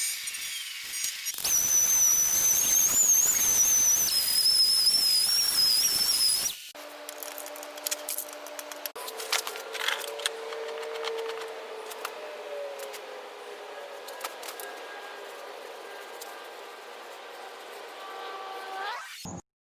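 Aerosol spray-paint can hissing for about five seconds, with a high wavering whistle over the hiss. It is followed by a quieter stretch of faint tones and scattered clicks, and the sound cuts off suddenly near the end.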